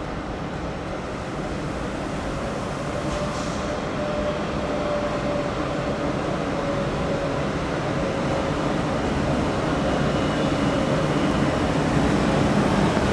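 Electric locomotive 102001 pulling a passenger train out of the station as it approaches and passes, its running noise growing steadily louder. A steady whine holds under the noise, wavering slightly in pitch.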